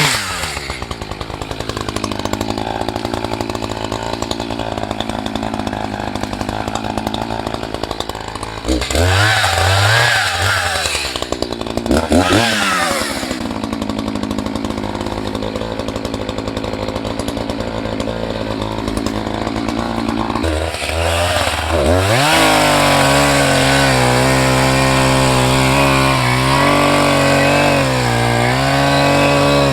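Echo CS590 59cc two-stroke chainsaw idling, revved briefly twice, then opened up about 22 seconds in and held at high revs, its pitch wavering with small dips.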